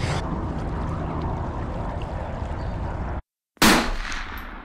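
Wind rushing on the microphone over outdoor river ambience, cut off abruptly. After a short silence comes a sudden loud boom that fades away over about a second.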